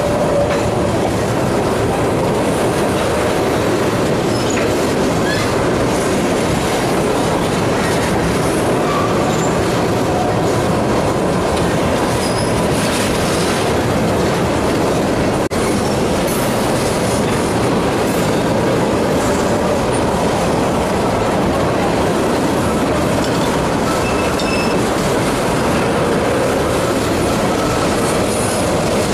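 Freight train of railroad tank cars rolling past close by: a loud, steady noise of steel wheels running on rail, with scattered short, faint wheel squeals.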